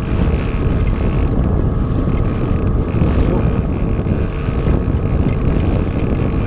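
Small outboard motor on an inflatable boat running steadily at trolling speed, with a dense, even rush of wind and water.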